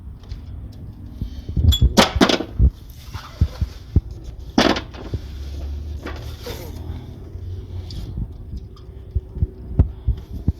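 Metal hand tools clinking and knocking: sockets being handled and tried on Torx bolts, a handful of sharp clacks over a low steady hum.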